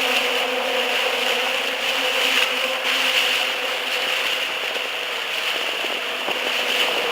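A boat's motor running steadily, a constant hum over a broad rushing hiss.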